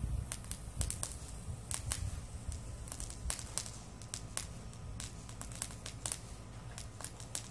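Handheld sparkler burning with irregular sharp crackles and pops, a few a second, over a low steady rumble.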